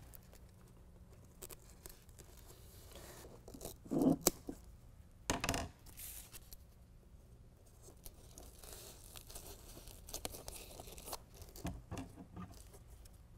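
Handling of an adhesive-backed hook-and-loop (Velcro) strip, with two short tearing rips about four and five and a half seconds in, and a few small clicks near the end.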